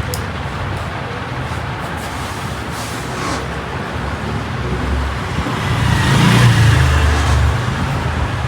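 Steady rumble of road traffic, swelling as a vehicle passes about six to seven seconds in.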